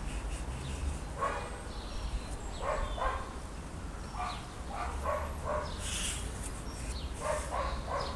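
A dog barking repeatedly in short barks, some in quick runs of two or three, over a steady low rumble.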